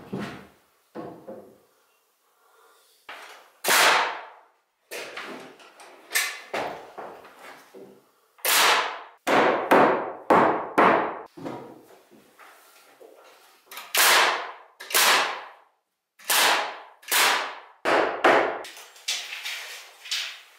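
A hammer driving nails into wood framing: sharp blows in runs of several, with short pauses between the runs.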